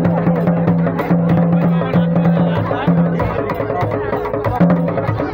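Several djembe drums played together by hand in a dense rhythm of sharp slaps and tones.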